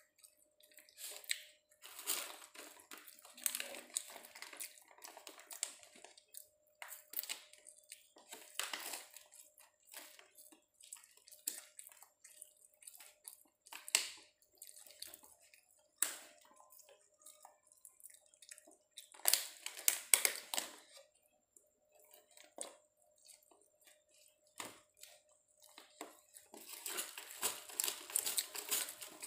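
A person eating fried chicken and rice by hand, with chewing and mouth noises, and clicks and crackles of a thin clear plastic food container as fingers pick at it. The sounds come in irregular bursts over a faint steady hum.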